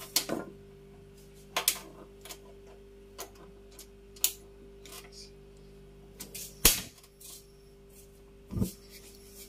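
Scattered sharp clicks and small knocks at a gas stove with a cast-iron frying pan of oil on it, two louder knocks near the end, over a faint steady hum.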